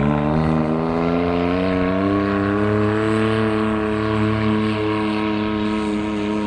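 Straight-piped Can-Am Maverick X3 Turbo's three-cylinder turbo engine with an HMF straight-pipe exhaust, pulling hard. Its pitch climbs over the first two seconds, then holds steady and gets slightly quieter near the end.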